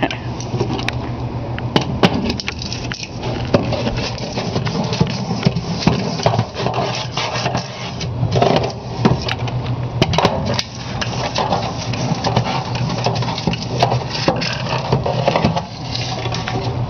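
Long-handled metal scraper working grease off the sheet-metal walls of a kitchen exhaust duct, in irregular strokes with scrapes and knocks against the metal, over a steady low hum.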